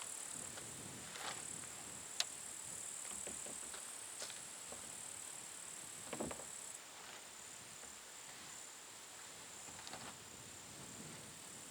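Steady high insect chirring, with a few scattered light knocks and clicks; a sharp click about two seconds in and a duller knock about six seconds in.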